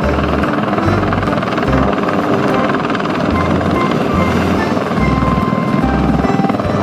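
Helicopter rotor chopping, a steady rapid beat, over background music with a changing bass line.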